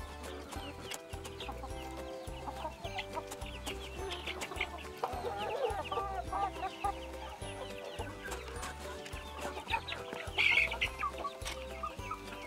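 Domestic chickens clucking, with many quick high chirps, over background music with a steady bass line. A louder high call stands out about ten and a half seconds in.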